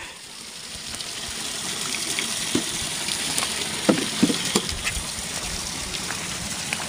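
Water rushing steadily, building up over the first two seconds, with a few faint knocks about halfway through.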